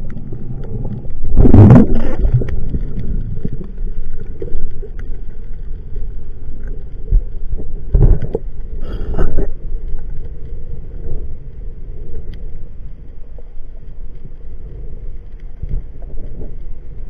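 Underwater sound picked up through an action-camera housing as a freediver swims down: a steady low rumble of water, broken by a few short loud rushes of water, the biggest about two seconds in and two more around eight and nine seconds in.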